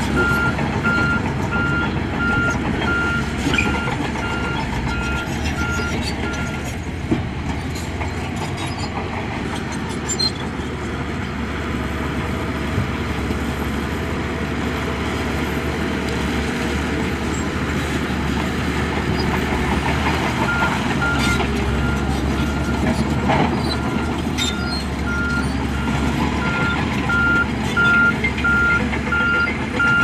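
Heavy construction machinery's diesel engines running, with a reversing alarm beeping in an even repeating pattern; the beeping stops about seven seconds in and starts again about twenty seconds in.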